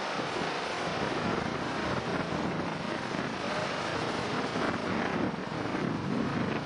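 Strong storm wind buffeting the microphone over heavy surf breaking: a steady, loud rushing noise that swells and eases.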